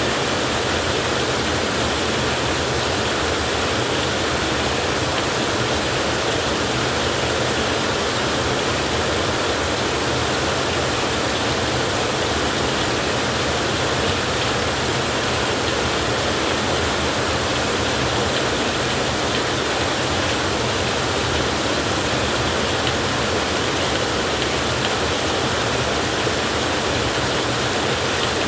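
Heavy rain falling as a steady, unbroken rush of noise, with no thunder or change in level.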